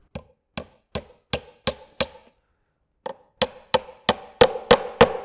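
Hammer driving 1-inch sherardized pins through a wooden hive roof's wall into the inner bar: quick knocks about three a second, six in a row, then after a pause of about a second seven louder blows.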